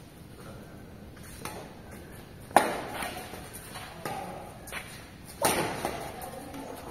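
Badminton racket strikes on a shuttlecock in a rally: sharp smacks a little over a second apart, two of them much louder than the rest. Each hit echoes in a large hall.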